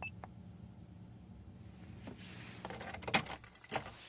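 Keys jangling on a key ring at the ignition, a cluster of metallic jingles and clicks in the second half, with a faint steady cabin hum that stops near the end as the ignition is switched off.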